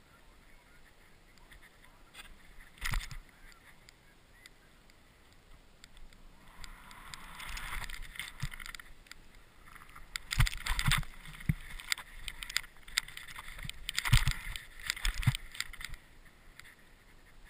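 Snowboard riding through deep powder: the board hissing and scraping through the snow, with sharp knocks and thumps. There is one knock early, then the hiss swells after a few seconds with clusters of knocks in the second half.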